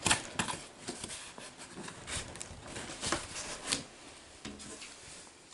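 Cardboard shipping box being handled and worked open, its packing tape tugged: a run of irregular scrapes, taps and rustles.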